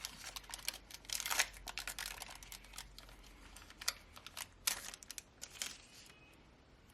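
Foil booster pack wrapper being torn open and crinkled, a dense crackling about a second in, then a few separate sharp crackles.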